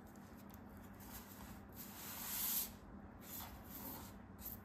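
Soft scraping rustle of kinetic sand being handled and cut with a craft knife, swelling to its loudest about two and a half seconds in, then a second, shorter rustle and a small click near the end.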